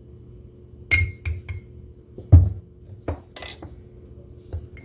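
A metal measuring spoon and utensils clinking against a small glass bowl: a ringing clink about a second in, then a few quick clicks. A dull knock a little past halfway is the loudest, and lighter taps follow near the end as the spoon is set down on the counter.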